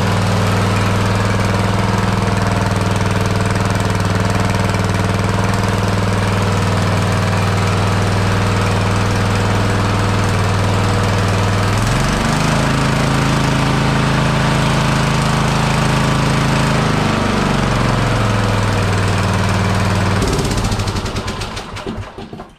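Riding lawnmower's small engine running loudly through a homemade welded exhaust pipe and muffler. About twelve seconds in it revs up and holds higher for about five seconds, drops back to idle, then is shut off near the end and runs down.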